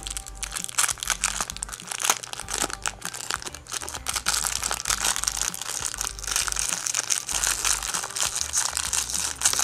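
Thin clear plastic bag crinkling and crackling as it is handled and opened by hand, a dense run of quick crackles with a couple of brief pauses.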